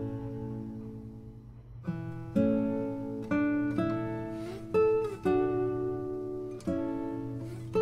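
Background music on acoustic guitar: plucked notes and chords struck every second or so, each left to ring out.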